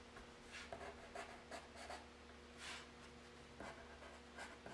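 Faint scratching of a pencil on paper in short, quick, irregular strokes, sketching small tufts of grass.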